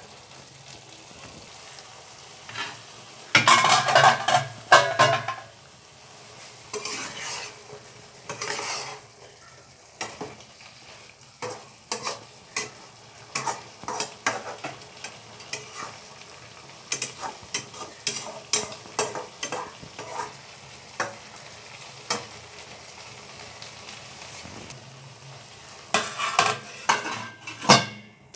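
A metal spatula scraping and tapping against a black wok as vegetables are stir-fried, over the steady sizzle of the frying. The loudest runs of scraping come about three to five seconds in, and a clatter near the end comes as a steel lid is set on the pan.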